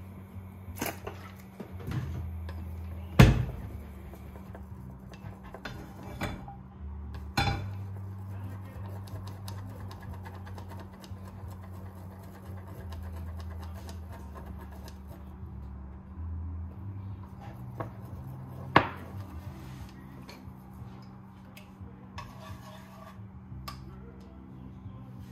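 Kitchen clatter of dishes and utensils: a few sharp knocks and clinks, the loudest about three seconds in and another near nineteen seconds. Background music with a low bass line runs underneath.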